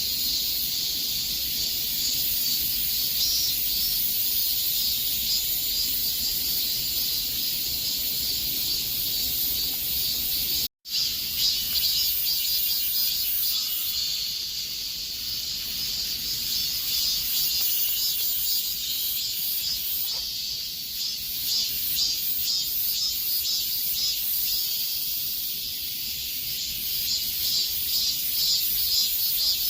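A chorus of cicadas buzzing in a steady, high-pitched drone that cuts out completely for a split second about eleven seconds in. From about fourteen seconds on, a fast pulsing runs through the top of the drone.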